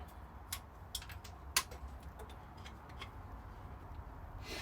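A few light, scattered clicks and taps of tools and wood being handled on the workbench, the clearest at about half a second, one second and a second and a half in, over a faint low hum.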